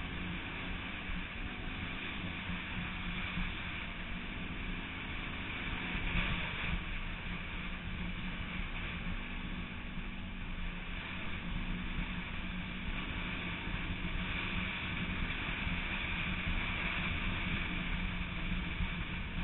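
Off-road bike engine running at speed, its pitch rising and dipping slightly with the throttle, under a steady rush of wind noise.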